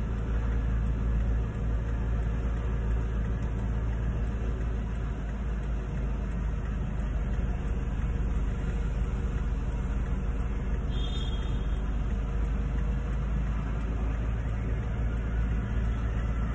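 Steady low rumble of a car's engine idling, heard from inside the cabin.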